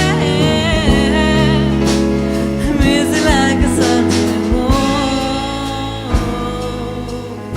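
Live band music: a wavering lead melody over bass and drums.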